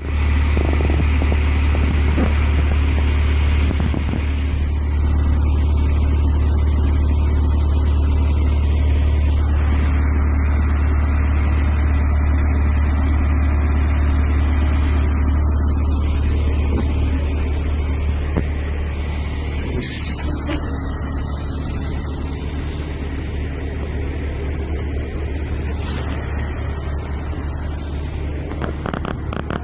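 Heavy vehicle engine running steadily with a deep low drone. A brief high hiss comes about twenty seconds in.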